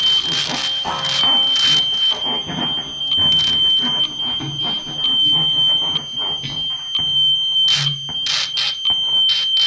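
Live electronic improvisation: a steady, shrill single tone held unbroken, like an alarm, over shifting hiss, low murmurs and crackle, with a cluster of sharp noise bursts near the end.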